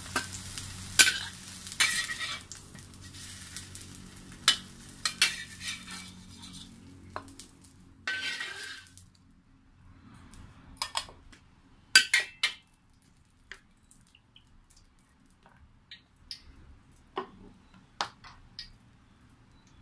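Metal wok spatula scraping and clinking against a wok as fried eggplant pieces are lifted out, over a light sizzle of hot oil that dies away about halfway through. After that come only scattered clinks of the spatula in the empty wok.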